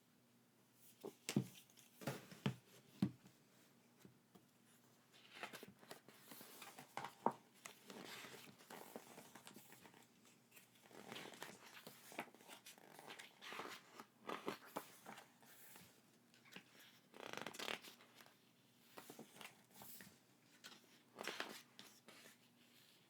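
Faint handling of packaging being unboxed: a few sharp taps or clicks, then irregular rustling and tearing.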